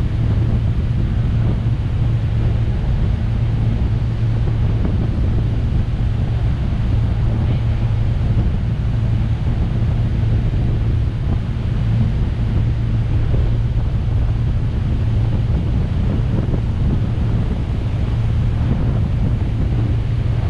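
Wind buffeting the microphone over a steady low engine drone and water rushing past the hull of a 1998 Sea Ray 330 Sundancer under way, its Mercruiser 7.4-litre (454) V8 inboards running at cruise.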